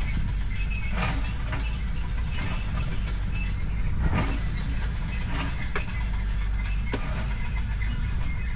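An engine running steadily with a low rumble, with several short sharp clicks or knocks over it.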